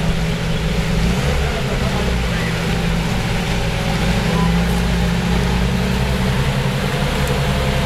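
Off-road vehicle's engine running steadily, a continuous low drone.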